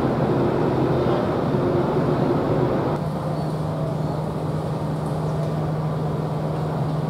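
Diesel engine idling with a steady low hum. The sound changes at a cut about three seconds in, then runs steady again.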